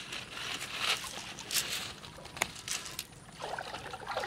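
Water splashing and trickling in short irregular bursts, with a few sharp clicks, from a wet cast net holding small fish on gravel.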